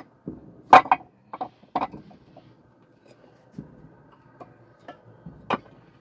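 Irregular sharp knocks and clatters of hard objects, the loudest cluster about a second in and another single knock near the end.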